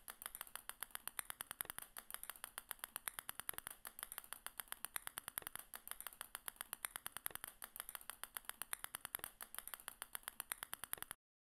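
Light, quick clicks in an even stream, about seven a second, for small balls dropping one by one onto a growing pile. They stop abruptly near the end.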